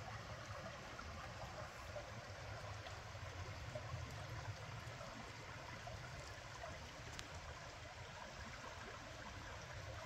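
Shallow creek water running steadily over flat stones and rocks.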